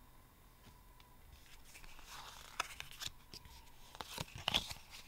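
Yu-Gi-Oh trading cards being handled: a faint rustle of cards sliding against each other, with several quick sharp snaps as cards are flicked and set down, starting about a second and a half in.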